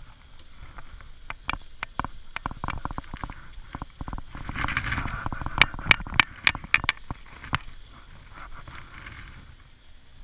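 Hands scrubbing shampoo lather into a standard poodle puppy's soaked curly coat: a run of wet squelching clicks, thickest and loudest in the middle, with a short hissing rush just before them.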